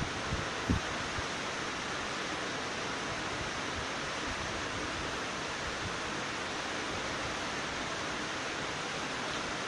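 Steady, even rushing hiss with two faint low thumps within the first second.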